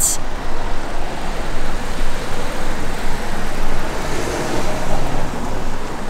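Busy road traffic: a steady wash of cars going by, with one passing louder about four seconds in, heard through a Rode VideoMicro on-camera microphone with its windsock on.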